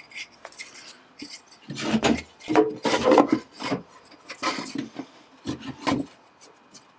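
A wooden base panel pushed by hand down inside a wooden box, scraping and rubbing against the box sides in a run of irregular strokes, which begin about a second and a half in: the panel is a tight fit.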